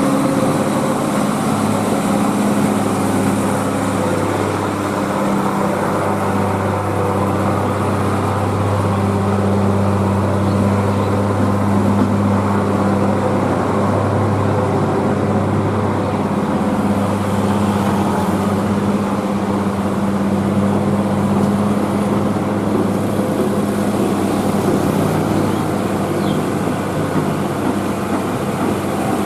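Heavy diesel truck engines pulling uphill in a steady, unchanging drone, with other road traffic passing; a Mitsubishi Fuso 220PS truck comes close near the end.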